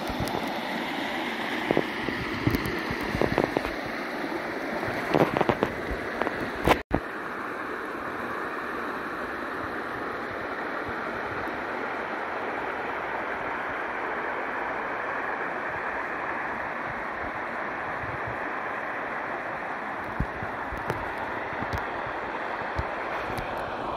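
Shallow creek rushing over shale ledges and a small cascade, a steady rush of water. A few knocks come in the first seconds, and the sound drops out for an instant about seven seconds in before the even rush goes on.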